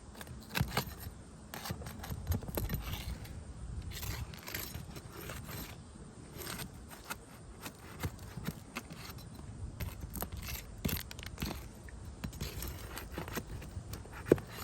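Roofing nails being pried out from under asphalt shingles: irregular scraping and small metallic clicks, with one sharper click near the end.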